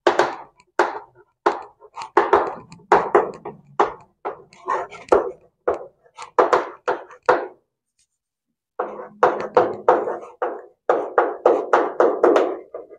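Chalk writing on a blackboard: a quick run of short scratching and tapping strokes as letters are written, with a pause of about a second about two-thirds of the way through.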